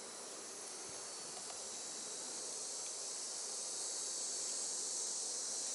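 Honeybees buzzing around an open hive, under a steady high-pitched insect hiss that grows slowly louder.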